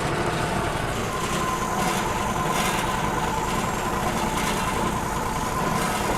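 Wood-Mizer LT35 band sawmill's engine running steadily, with a steady high tone joining about a second in.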